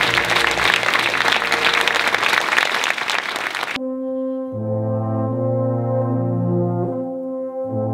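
Audience applauding, cut off abruptly a little under four seconds in by brass instruments playing slow, held chords that change about once a second.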